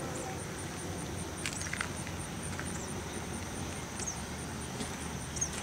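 Outdoor ambience by a pond: a steady low rumble under a high pulsing of about five beats a second, with a few short high chirps.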